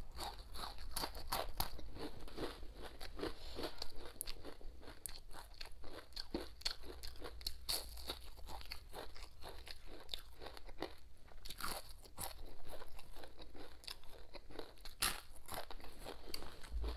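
Close-up crunching and chewing as a person bites into and eats a whole fried fish, many irregular crisp crunches.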